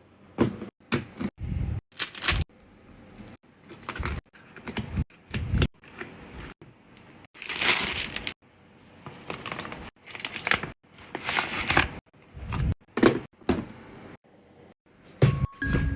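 Packaging and small objects being handled during an unboxing: a string of sharp clicks, taps and crinkly rustles, one after another and irregularly spaced, with a few longer rustles around eight and eleven seconds in.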